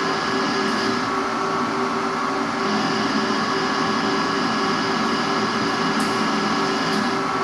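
Metalworking machine tool running steadily, a motor whine of several steady tones over a hiss of cutting noise; the higher hiss eases for a second or two about a second in, and faint light ticks come now and then.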